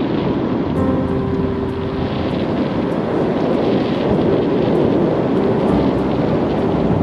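Steady rush of wind and road noise from a car driving along the road.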